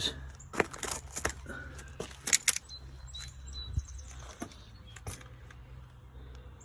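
Scattered metal clicks and knocks from rusty scrap stuck to a magnet-fishing magnet being handled and knocking together, with two louder clanks about two and a half seconds in.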